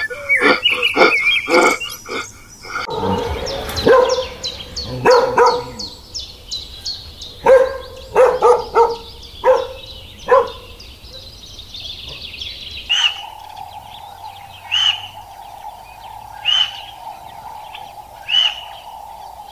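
A dog barking, in single barks and short runs of barks. Before it come short repeated sounds; after it, a steady hum with a short chirp about every two seconds.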